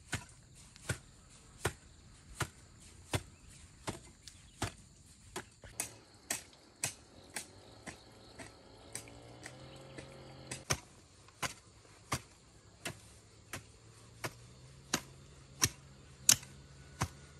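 A hand tool chopping with steady, sharp strikes, about one every three-quarters of a second, with a brief pause about halfway through.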